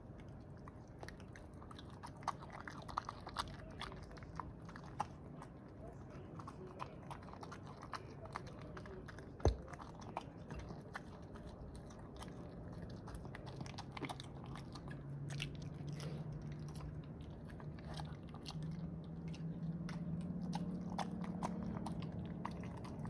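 A dog eating rice: irregular clicks and crunches of chewing, with one louder knock about nine and a half seconds in. A low hum comes up about halfway through.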